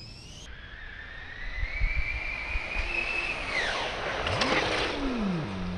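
Arrma Typhon TLR RC buggy on 6S running flat out: the brushless motor's high whine climbs steadily in pitch, then drops sharply as the car speeds past, with a rush of noise at the pass.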